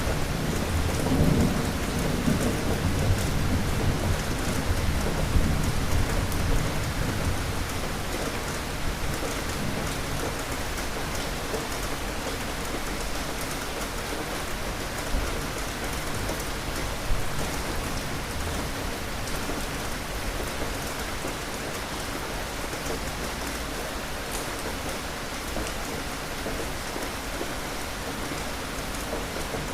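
Steady rain falling, with a low roll of thunder loudest in the first few seconds that dies away over the next several seconds.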